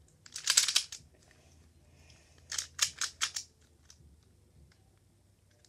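Plastic pyraminx puzzle being turned quickly by hand: a dense cluster of clicking turns near the start, then a run of about five clicks about two and a half seconds in.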